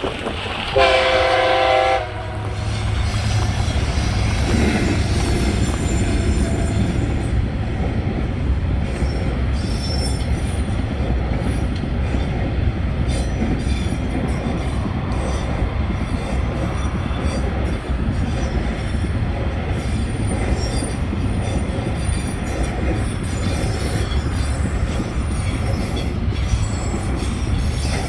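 TasRail diesel freight train at a level crossing: the locomotives sound one horn blast of about a second near the start, then the locomotives and freight wagons run past steadily.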